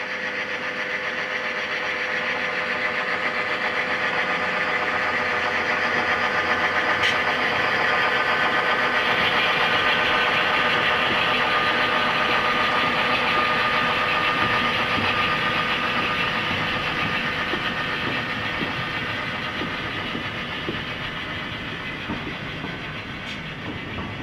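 A diesel locomotive engine runs steadily as a freight train passes. The sound swells to its loudest about halfway through and then slowly fades.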